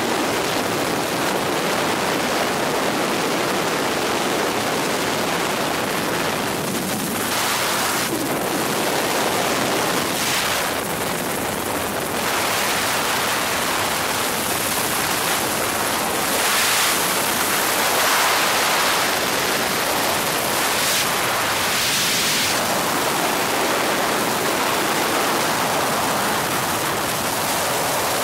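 Steady rushing hiss of a helicopter in flight, heard from inside the cabin, swelling slightly now and then.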